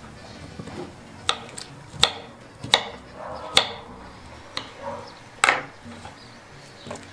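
Kitchen knife cutting firm peeled squash into cubes on a wooden cutting board: about six sharp knocks of the blade on the board, irregularly spaced roughly a second apart.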